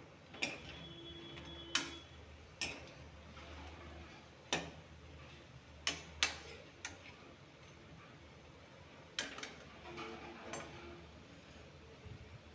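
Metal spatula knocking and scraping against a metal kadhai as besan bari are turned in frying oil: about ten sharp clinks at irregular intervals, with two close together around the middle.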